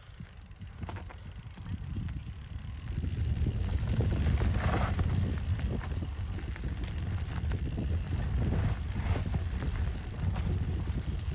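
Mountain bike riding over a rough trail: a low rumble from the tyres and from wind on the microphone, with many sharp clicks and rattles from the bike jolting over bumps. It grows louder about three seconds in and stays loud.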